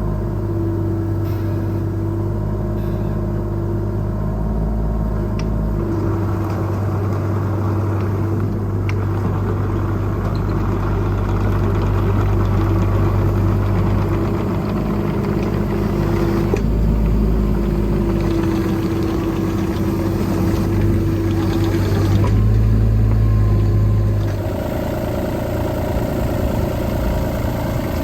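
CAT 303.5E mini excavator's diesel engine running steadily, with a higher whine that comes and goes every few seconds over the engine hum. The sound drops a little near the end.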